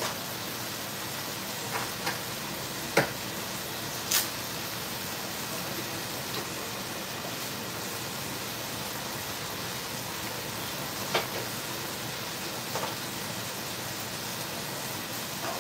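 Steady hiss and sizzle of cooking on a gas stovetop: sliced sausages frying in a pan and a pot of spaghetti boiling. A few short, sharp ticks stand out from it.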